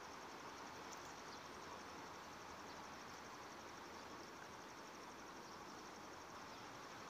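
Faint, steady rush of flowing river water, with an insect trilling high above it in a fast, even pulse.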